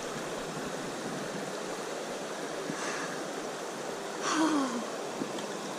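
Shallow creek water running over stones in a steady rush. About four seconds in, a short voice sound that drops in pitch.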